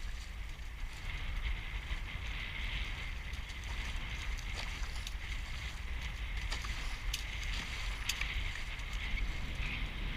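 Wind buffeting the microphone with a steady low rumble over the hiss of water rushing past the hulls of a Hobie 14 catamaran under sail. Two sharp ticks come past the middle.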